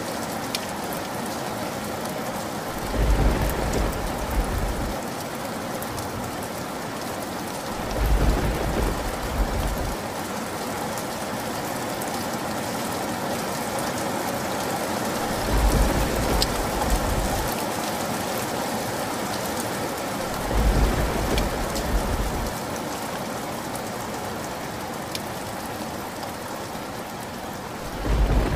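Steady rain falling, with low rolls of thunder breaking in four times, each about two seconds long, and another starting at the very end.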